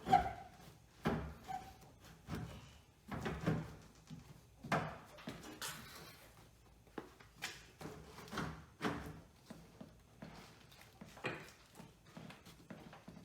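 Irregular knocks, clicks and scraping as a car's interior door panel is handled and pushed against the door onto its metal clips.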